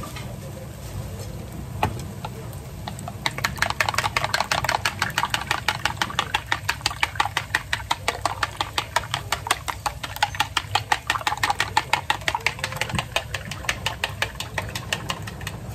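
Eggs being beaten with chopsticks in a bowl: rapid, even clicking of the chopsticks against the bowl, starting about three seconds in and stopping shortly before the end. A low steady hum sits underneath.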